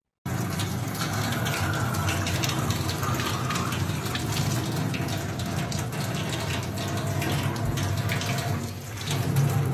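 Tap water running from a faucet into a stainless steel sink and splashing over a chimpanzee, starting suddenly about a quarter second in.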